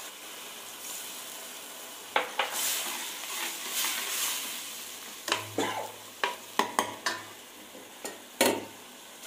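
Steel ladle stirring and scraping a thick onion-tomato masala in a stainless steel kadai, the masala sizzling as a little water goes into the hot pan. A hiss swells about two to four seconds in, and the ladle clinks sharply against the pan several times in the second half.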